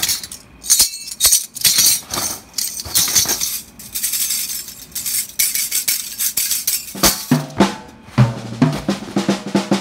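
Music: a busy jazz drum-kit part of quick snare and cymbal strokes, with low pitched notes joining about seven seconds in.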